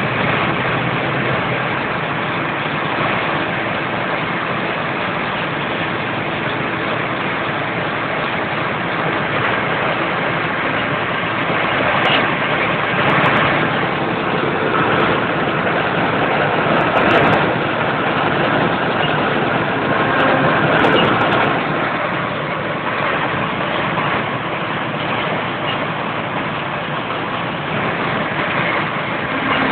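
Don-1500B combine harvester's diesel engine and machinery running steadily while its unloading auger discharges grain into a truck. A dense, even mechanical noise that grows louder for a while around the middle.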